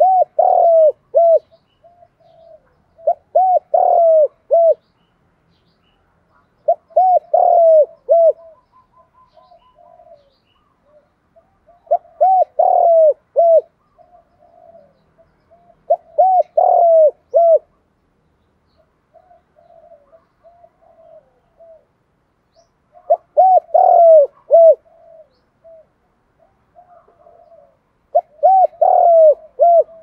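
Spotted dove cooing: seven phrases of several deep, hooting coos, each a second or two long and about four to five seconds apart, with softer single coos in between. This is the dove's repeated call used to lure wild doves.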